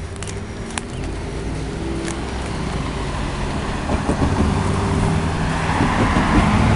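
Road traffic with a car's engine growing steadily louder as it approaches and drives across the rail crossing. A few sharp clicks sound near the start.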